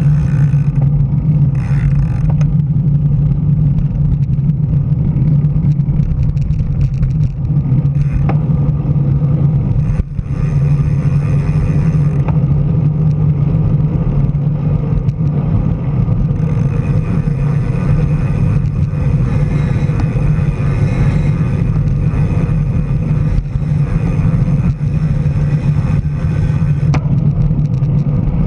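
Steady rumble of wind on the microphone and tyre noise from the road, picked up by a camera mounted on a road bike while riding.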